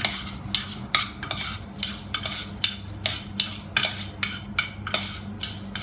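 A utensil stirring washed raw rice mixed with Chinese wine and salt, scraping and clinking against the container in a steady rhythm of about four strokes a second.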